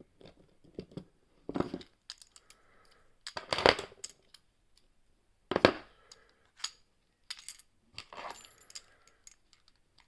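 Small metal clicks and clinks as lever-lock picking tools are drawn out of a five-lever padlock and the lock is handled. It comes as irregular light ticks with a few louder clinks, some with a brief ring.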